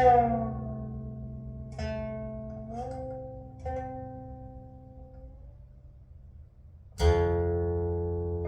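Music on a guitar-like plucked string instrument: a few slow single notes that slide up in pitch over a sustained low drone, dying away almost to nothing before a full chord is struck about seven seconds in.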